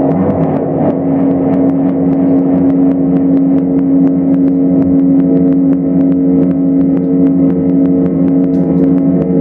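Live electronic noise music: a loud, steady drone built from a held low tone with layered tones above it, and a scatter of faint clicks running through it.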